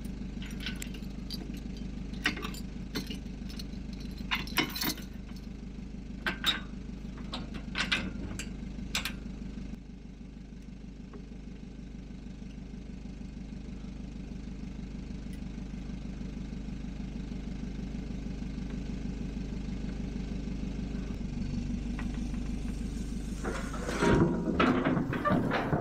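A van's engine idling steadily. Over it come sharp metallic clinks and rattles of trailer safety chains and the hitch being handled during the first ten seconds or so, and a loud run of metallic clattering near the end.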